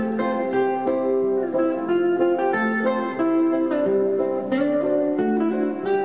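Acoustic guitar picking a quick melody of single notes over chords, an instrumental break in an old-time folk song.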